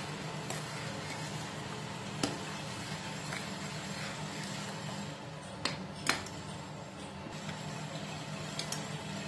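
A steel ladle stirring thick coconut gravy in a stainless steel pot, with a few sharp clinks of the ladle against the pot: one about two seconds in and two close together around six seconds, over a steady low hum.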